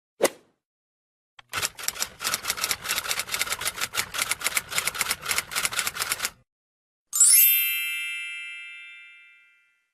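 Typewriter typing: a fast run of key strikes lasting about five seconds, then the carriage-return bell dings once and rings out over a couple of seconds.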